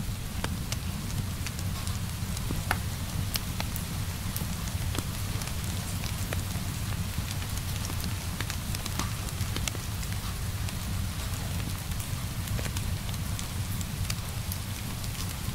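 Wood fire crackling in a fireplace: a steady low rumble of flames under scattered sharp pops and crackles.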